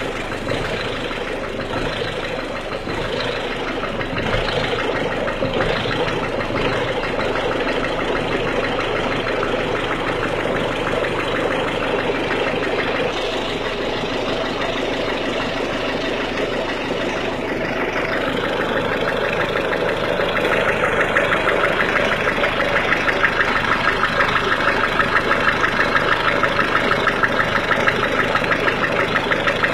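1.6 HDi four-cylinder diesel engine idling with a clattering knock, the cold-engine noise in question. About two-thirds of the way through, a fast, even ticking gets louder.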